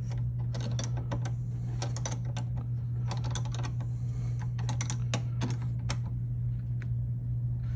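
Irregular metallic clicks and clinks of two wrenches working a nut on the golf cart controller's B-negative battery-cable terminal as it is tightened. A steady low hum runs underneath.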